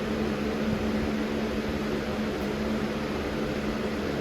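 Lasko Premium box fan (model 3723) running steadily on its low speed: an even rush of air with a steady motor hum, sounding almost as strong as a medium setting.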